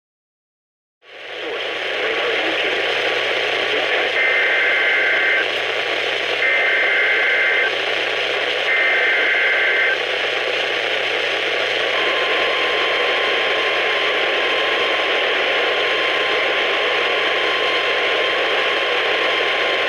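A NOAA Weather Radio receiver picking up an emergency alert through heavy static. Three short warbling two-tone data bursts (the SAME header of the EAS alert) come about a second apart. They are followed by the long, steady single-pitch warning alarm tone, which announces an alert before the voice message.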